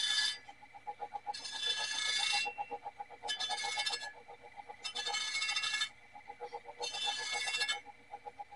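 Edge of a circular meat-slicer blade pressed against the spinning wheel of a sharpening machine in short passes: four grinding bursts of about a second each, over the machine's steady whine and a fast even ticking.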